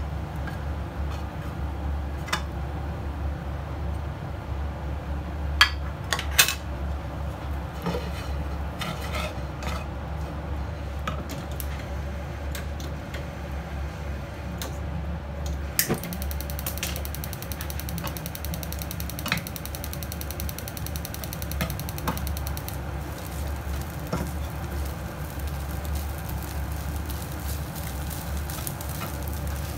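A spatula scrapes and knocks against a non-stick frying pan as rice is stir-fried, with occasional sharp clacks over a steady low hum.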